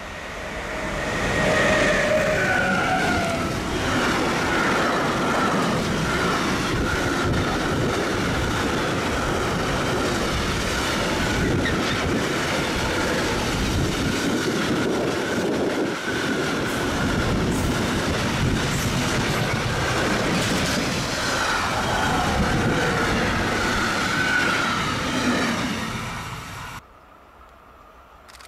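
A train passing at close range. The rail noise rises over the first two seconds and holds loud and steady, with a wavering high squeal from the wheels over it, then cuts off abruptly near the end.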